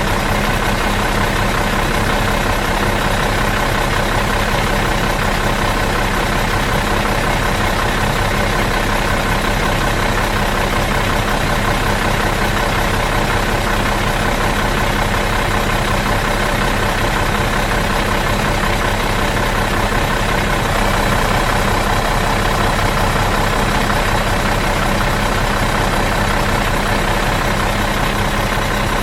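Bus engine idling steadily out of gear, an even unchanging hum with a fine rapid low pulse.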